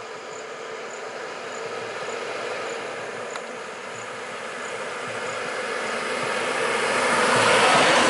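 Diesel engine of a Lanka Ashok Leyland bus running and growing steadily louder as the bus pulls away and passes close by. Faint high insect chirps, about two a second, fade out partway through.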